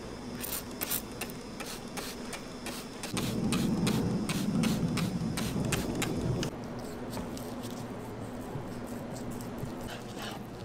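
Spice shaker shaken over raw pork chops: a fast run of dry rattling ticks, with a louder low rushing noise in the middle for about three seconds.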